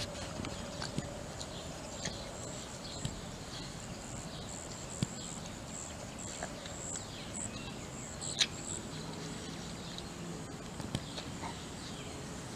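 A Rottweiler licking and mouthing a cupcake: scattered small clicks from its mouth, a sharper one near the end. Faint high chirping runs in the background, busiest in the middle.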